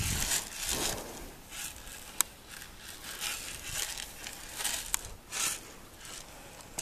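Plastic bag on the end of a buggy whip crinkling and rustling in irregular bursts as it is rubbed over a horse's side and saddle, with a sharp click about two seconds in. It is a noisemaker used to get the horse used to noise.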